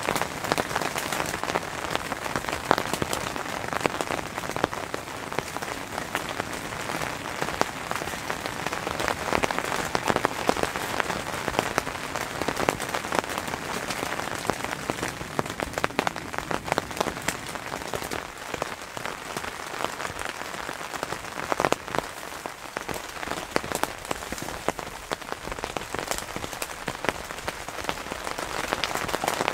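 Steady rain on a tent, heard from inside: a dense patter of drops hitting the tent fabric and its clear plastic window.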